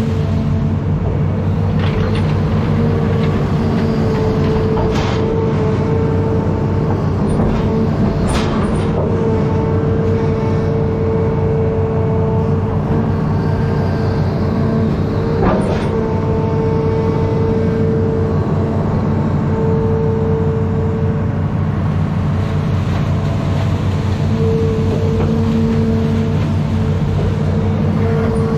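Diesel engine of a Hitachi Zaxis 210F amphibious excavator running steadily under load as it digs, heard from the machine, with a steady higher hum over the engine note. A few sharp knocks, the strongest about fifteen seconds in.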